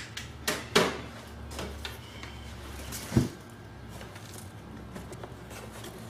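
Plastic air filter housing from a BMW 128i being lifted out and handled: a few knocks and scrapes of hard plastic, the loudest about a second in and again about three seconds in.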